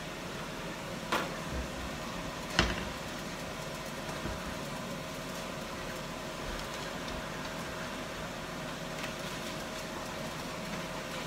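A cooking utensil knocks sharply against a pot twice, about a second in and again, louder, a second and a half later, over a steady hiss and faint hum.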